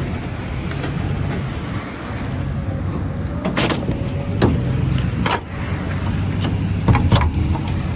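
Vehicle engine running steadily, with about five sharp clanks in the second half, the loudest pair close together near the end.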